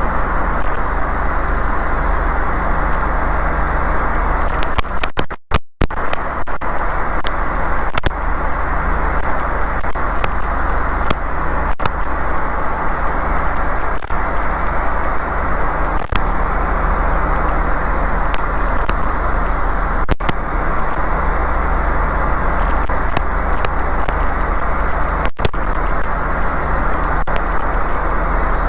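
Steady engine and airflow noise inside a light aircraft's cockpit in flight, dull, with little above the midrange. It drops out briefly about five and a half seconds in, and faint clicks come every couple of seconds.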